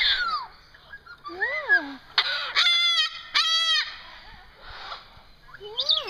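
White cockatoos calling: about five loud squawking calls that rise and fall in pitch, the strongest two in the middle a second apart, with quieter gaps between.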